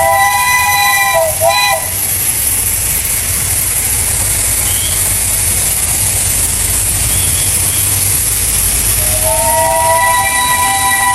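Steam locomotive whistle sounding a steady chord of several tones, with a brief warble just before it stops about two seconds in. Then steam hissing over a low rumble, until the whistle sounds again about nine seconds in, sliding up slightly as it starts.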